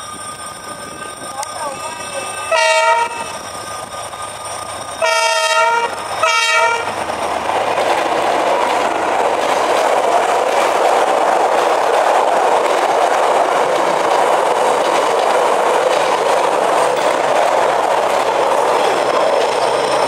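D19E diesel-electric locomotive's horn sounding three blasts about 2.5, 5 and 6.5 seconds in, the middle one the longest, at a sound-the-horn sign. Then the passenger coaches roll past with a loud, steady noise of wheels on the rails.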